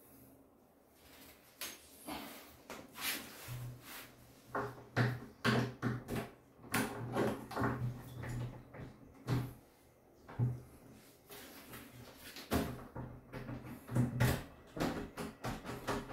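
Irregular clicks, knocks and rattles of a door handle and lock set being worked loose with a screwdriver: metal parts clinking and the door thudding now and then.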